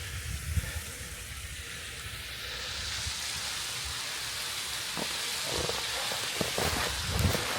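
Rushing water with a steady hiss that grows louder over the first few seconds. A few crunching footsteps in snow come near the end.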